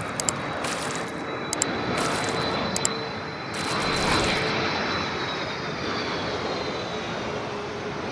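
Jet airliner's engines passing: a steady rush with a high whine that slowly drops in pitch over the second half as the aircraft goes by. A few short sharp ticks sound in the first three seconds.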